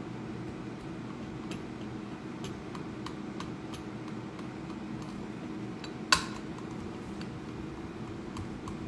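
A hard block of Parmesan scraped back and forth on a flat stainless-steel hand grater laid across a glass measuring cup: light scraping with faint ticks, then one sharp clink about six seconds in. A steady low hum runs underneath.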